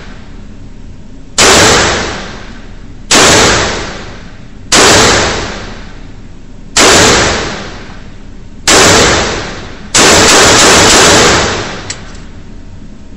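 Firearm shots fired one after another, about one every two seconds, each loud crack trailing off in a long echo. Near the end comes a longer, sustained blast.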